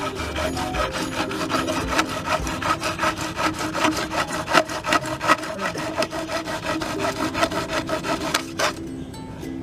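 Hacksaw blade held in the hand sawing lengthwise through a PVC pipe in quick back-and-forth strokes. The sawing stops about a second before the end.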